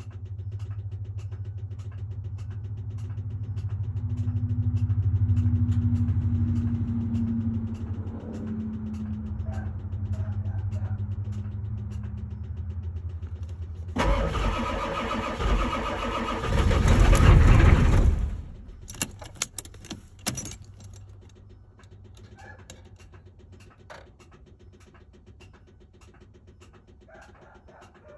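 Cold-start attempt on a 7.3 IDI V8 diesel with weak batteries. A long stretch of steady low cranking is followed about halfway through by a louder, harsher burst of several seconds that dies away again, then a few sharp clicks. The engine has not kept running by the end.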